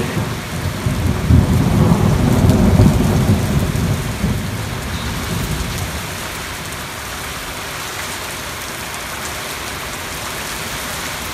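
A roll of thunder over steady rain: it builds within the first second, is loudest about two to three seconds in, and dies away by about six seconds, leaving the rain's steady hiss.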